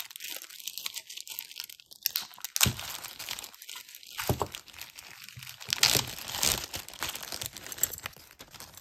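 Wrapping crinkling and crunching as it is handled, in irregular crackles with louder crunches about two and a half and six seconds in.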